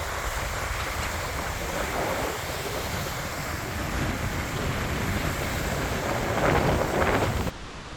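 Strong wind buffeting the microphone over rough waves on the water, swelling in a gust a little before the end, then cutting off abruptly.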